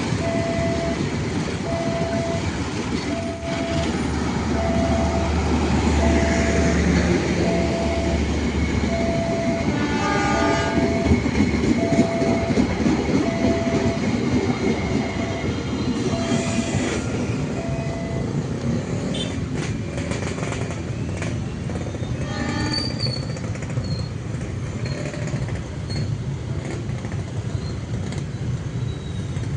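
A train passes a level crossing with a steady rumble of wheels on the rails and a short horn blast about ten seconds in. The crossing's warning signal beeps at an even pace, about once every second and a half, and stops about two-thirds of the way through.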